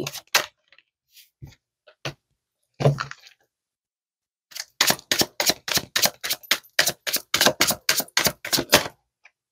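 Tarot cards being shuffled by hand: a few scattered card clicks, then about halfway through a fast, even run of sharp card snaps, about five a second, that stops shortly before the end.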